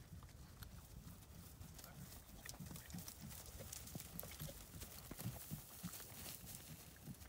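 Hoofbeats of two ridden horses moving over dry grass ground, growing louder as they pass close by about five seconds in.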